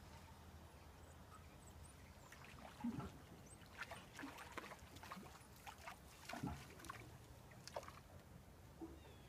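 Faint wash of calm sea water with scattered light clicks and taps, thickest in the middle seconds, while a mackerel is reeled in on a spinning rod and lifted out of the water.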